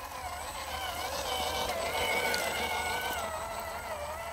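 Electric motor and gearbox of a 1:10 Axial SCX10 II RC crawler whining, the pitch rising and falling with the throttle. It is loudest about two seconds in as the truck passes close, then fades as it drives away.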